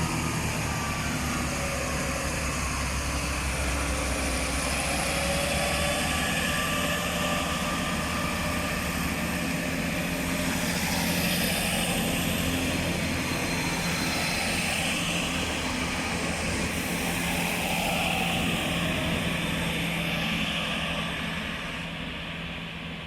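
Three coupled Class 165 diesel multiple units pulling out of the station, their underfloor diesel engines running under load with a steady low drone and a whine above it. The sound eases off near the end as the train draws away.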